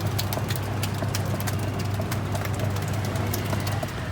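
Old Sanyo washing machine running on mains power: a steady low hum with many quick, irregular clicks and ticks over it. The hum stops shortly before the end.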